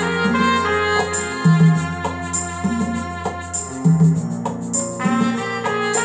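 Electronic keyboard played live: an instrumental passage with a melody over a bass line and a regular beat.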